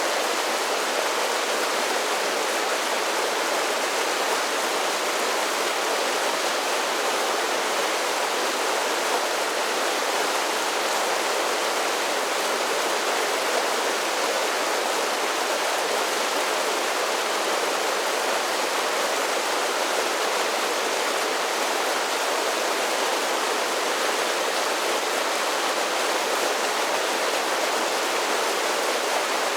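Mountain creek tumbling over a series of small waterfalls: a steady, even rush of falling water.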